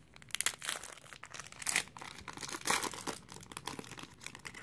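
Irregular crinkling and rustling of a pack of baseball cards and its wrapper being handled, as the cards are slid and flipped one by one.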